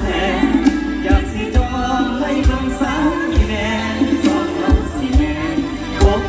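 Live Isan mor lam band playing with a singer's voice over it, strong bass drum hits keeping the beat, heard through the stage's loudspeakers.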